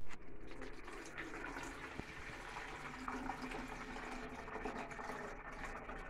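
Tap water running in a thin, steady stream from a bathroom faucet into a plastic measuring container, splashing as it fills. A single sharp click about two seconds in.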